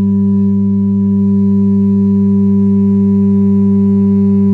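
Steady sine test tone at about 200 Hz (33 Hz scaled) from a small subwoofer driver in a 3D-printed scale-model half-horn enclosure, with overtones above it. The level comes up a little in the first half-second as the amplifier is turned up toward 15 watts, for a peak loudness reading of about 135.7 dB in the model cabin.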